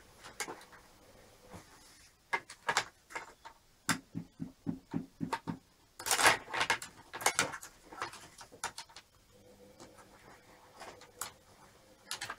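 Hands handling parts inside an open desktop computer case: scattered clicks, knocks and rattles, including a quick run of about six low knocks a few seconds in and the loudest clatter about six seconds in, then quieter clicks.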